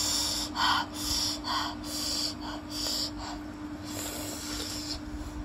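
Close-miked mouth sounds of a person eating: a string of short hissing sucks and sniffs, about two a second, fading near the end, over a faint steady hum.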